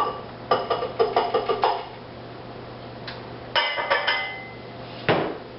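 A measuring cup clinking and knocking against a mixing bowl as a cup of flour is tipped in: a quick run of about six taps about half a second in, another cluster in the middle, and one sharp knock near the end.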